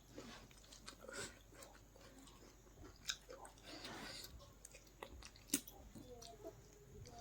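A person chewing and biting food close to the microphone, faint, with scattered short crunches and clicks, two of them sharper about 3 and 5.5 seconds in.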